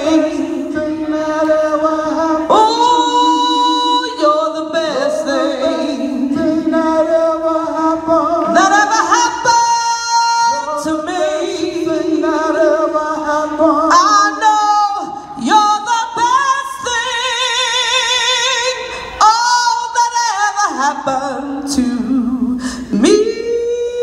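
A woman singing solo into a microphone, holding long notes with a wavering vibrato and breaking into quick vocal runs, without clear words.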